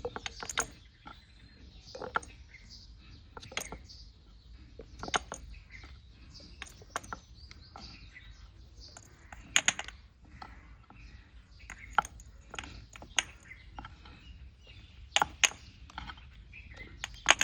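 Irregular sharp clicks and taps of hands working with small objects, a few louder knocks among them, with birds chirping in the background.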